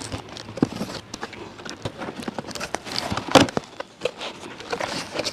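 Packing tape being picked at and pulled off a cardboard carton, then the cardboard flaps being opened: scattered scrapes, taps and rustles, with one louder rasping rip a little past three seconds in.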